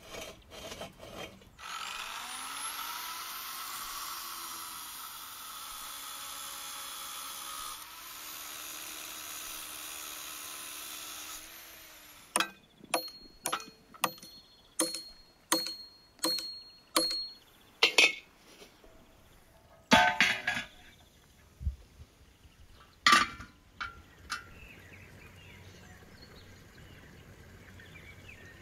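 An electric power tool runs steadily for about ten seconds, spinning up at the start and pausing briefly partway. Then a hammer strikes steel rebar about nine times in quick succession, each blow ringing, followed by a few heavier, more spaced knocks, as the stakes are driven into the log.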